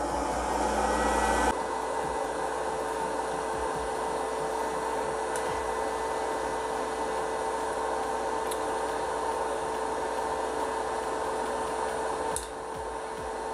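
Britânia Pop Time hot-air popcorn maker running: its fan blows hot air up through the chamber of swirling corn kernels, a steady whir with a constant hum. It is louder for about the first second and a half, then settles into steady running, with a few faint sharp ticks.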